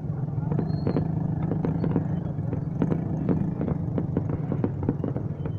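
Fireworks going off in a rapid, irregular string of sharp pops and cracks over a steady low rumble.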